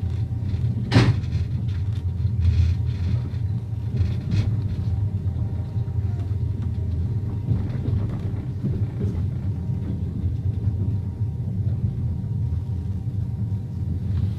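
A train running with a steady low rumble, a sharp knock about a second in and a few fainter knocks after it.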